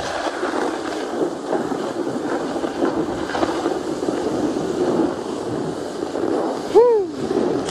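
A snowboard scraping and sliding steadily over hard, tracked snow, mixed with wind on the microphone. Near the end comes one short rising-and-falling shout from a person.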